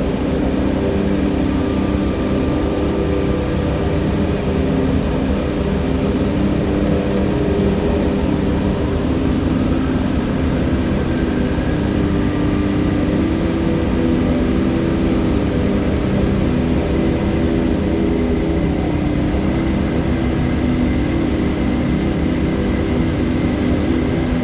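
River water rushing steadily, a loud continuous rush heavy in the low end, with a deep rumble and faint gurgling tones.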